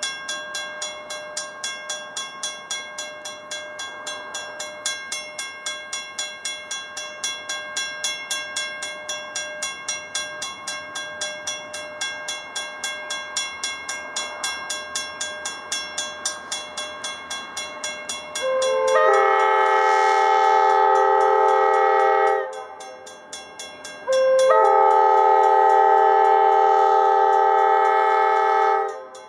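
Grade-crossing warning bell ringing steadily at about three strokes a second. About two-thirds of the way in, the approaching locomotive MEC 353's multi-chime air horn sounds two long, loud blasts with a short gap between them, drowning out the bell.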